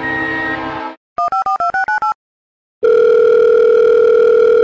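A train horn sounding steadily, cutting off about a second in. Then a phone's touch-tone keypad dialing a quick run of about seven beeps, followed by one long ringing tone of about two seconds.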